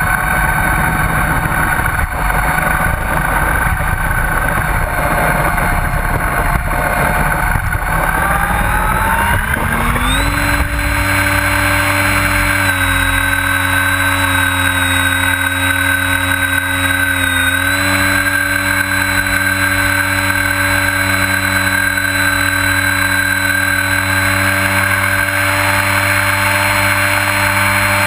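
Onboard sound of a radio-controlled T-28 Trojan model plane's motor and propeller running steadily, with a rough rumble of wheels on asphalt during the takeoff roll. About ten seconds in, the pitch rises as the throttle comes up and the rumble stops as it lifts off, and the motor then holds a steady, higher pitch in flight.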